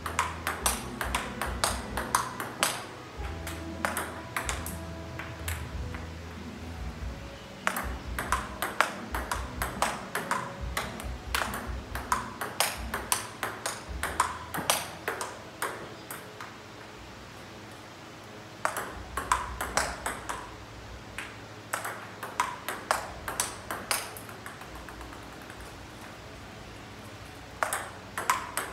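Table tennis balls clicking off rubber paddles and the tabletop in quick back-and-forth rallies, several hits a second, with two short pauses between rallies.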